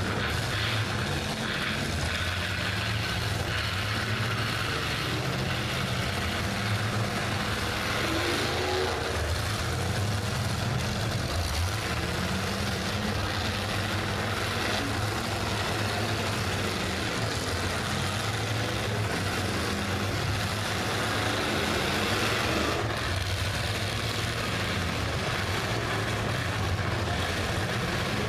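Demolition derby car engines running and revving together in a steady, unbroken engine din.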